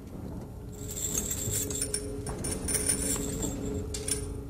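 Metal shackles and chains clinking and jangling as the prisoners get to their feet and move, with a faint low steady tone underneath.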